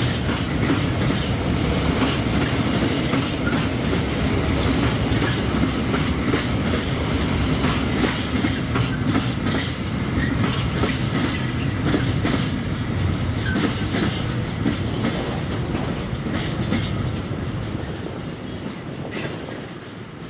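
Freight train wagons rolling past, the wheels clacking rhythmically over rail joints. The sound dies away near the end as the train draws off.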